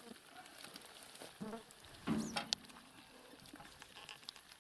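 Soft wet crackling and pattering of a heap of small live fish, minnows and crucian carp, flipping on a seine net as they are picked out by hand. A short muffled vocal sound comes about two seconds in, followed by a sharp click.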